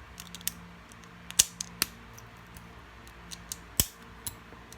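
Lego bricks clicking and clattering as they are handled and pressed together: a string of sharp plastic clicks, the loudest about a second and a half in and again about four seconds in.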